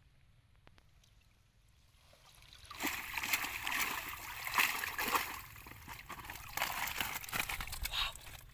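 Shallow muddy water splashing and sloshing as a woven bamboo fish trap is hauled up out of it, starting about three seconds in after a quiet opening.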